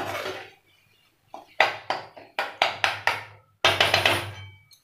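Spatula knocking and scraping against a metal kadhai while stirring a thick frying masala: a run of short strokes, about three a second, then a longer scrape near the end.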